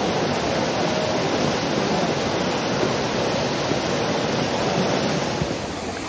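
Steady rush of hot spring water pouring off the wooden troughs of the yubatake and splashing into its pool.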